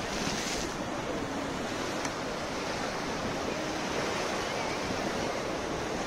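Rough sea surf breaking and washing against rocks and a seawall, a steady dense rush of water, with a brighter hiss of a breaking wave in about the first half second.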